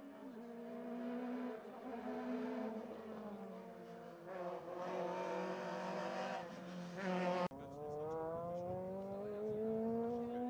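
Rally car engine on a special stage, its revs climbing and dropping in steps through gear changes as it accelerates and grows louder. About three-quarters of the way through, the sound cuts off abruptly, and an engine note then rises steadily as a car comes on.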